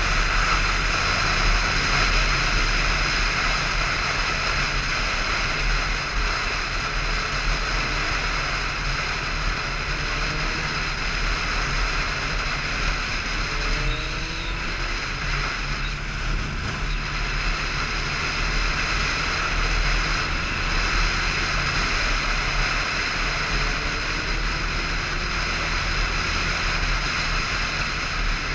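Motorcycle engine running steadily at cruising speed, with wind rushing over the microphone. A few faint, short rising tones come and go.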